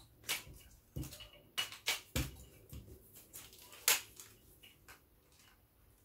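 Clicks and knocks of an Inca tripod's parts being handled and fitted together, about half a dozen sharp clicks in the first four seconds, then quieter fiddling.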